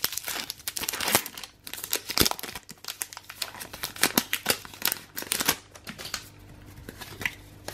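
Foil wrapper of a Pokémon TCG booster pack crinkling and tearing as it is ripped open and the cards are pulled out; the crackling dies down about six seconds in.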